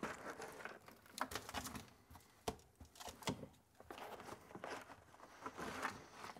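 Crushed dry ice slush poured from a small plastic cooler onto the foil-faced Dynamat sound deadener of a car floor pan: a faint rustle of granules landing and sliding, with scattered sharp ticks and light knocks.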